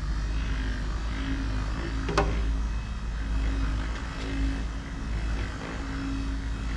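Electric orbital buffer running against a truck's polished aluminum fuel tank: a steady drone with a hum that fades in and out as the pad works, and one sharp click about two seconds in.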